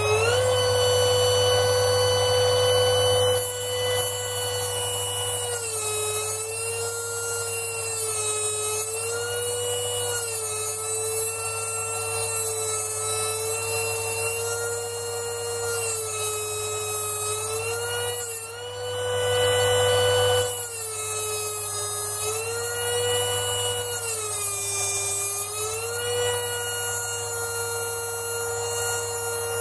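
Air pencil die grinder running at high speed with a steady high whine, reaching full speed just as it starts. Its pitch sags and recovers every few seconds as it is fed into the lathe's spindle register, grinding the register true to remove chuck runout. About two-thirds of the way through, a louder hiss lasts for about two seconds.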